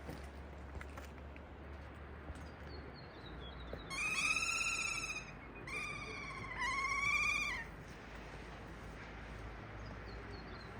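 Kea calling: three loud, high, wavering calls starting about four seconds in. The first is the longest, and the last two come close together.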